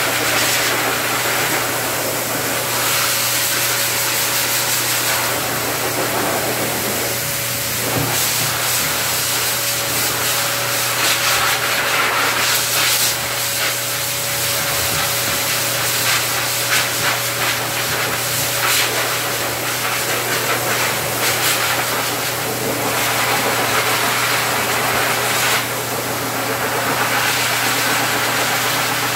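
Hose-type dog grooming dryer running steadily, air rushing from its nozzle into the dog's coat over a steady motor hum. The rush of air swells and fades as the nozzle moves through the fur.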